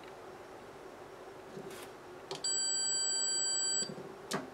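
Fluke 37 multimeter's continuity beeper giving one steady high-pitched beep for about a second and a half, starting about two and a half seconds in, as the probes find a low-resistance path through the transformer's secondary winding. Faint clicks of the probe tips on the solder pads come before and after it.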